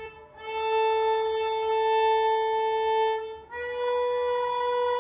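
Violin played by a beginner with long bow strokes: one long held note, then, after a short break about three and a half seconds in, a second long note a step higher.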